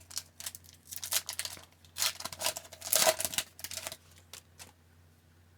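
Hockey card pack wrapper being torn open and crinkled while the cards are handled: a run of crackling, rustling bursts that stops about four and a half seconds in.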